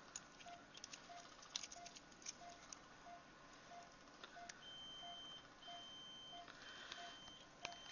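Veterinary anesthesia monitor beeping quietly and evenly, about one and a half beeps a second, pacing the anesthetised dog's pulse. From about halfway, a higher-pitched tone sounds in longer broken beeps, and surgical instruments click faintly now and then.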